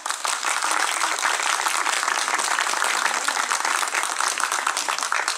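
A small group of people applauding: a dense, steady patter of hand claps that starts at once and tails off near the end.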